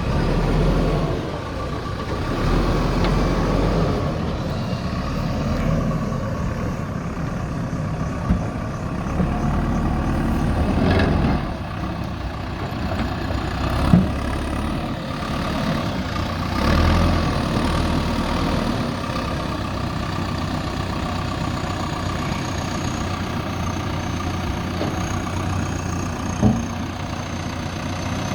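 Diesel engine of a JCB 3DX backhoe loader running while the machine works, its level swelling and easing several times. Three short sharp knocks stand out over it.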